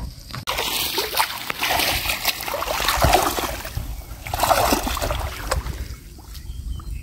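Water splashing and sloshing as a netted fish trap is pulled up out of a shallow, grassy pool, with louder swells about three seconds in and again about four and a half seconds in.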